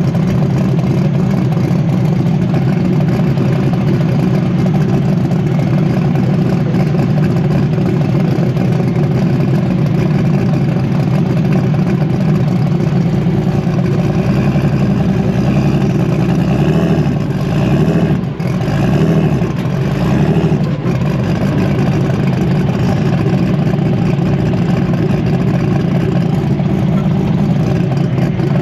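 Engine running loudly at a steady speed, with a brief drop and wavering in its sound about eighteen to twenty seconds in.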